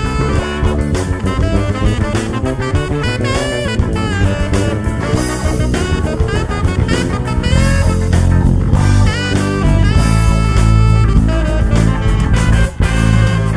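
Electric bass guitar played fingerstyle along with a recorded band track: a drum kit keeps a steady beat under a strong bass line, with a lead melody that slides between notes above it.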